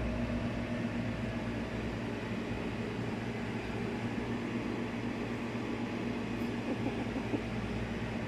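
Steady hum of an electric appliance motor running, with a low electrical drone under it.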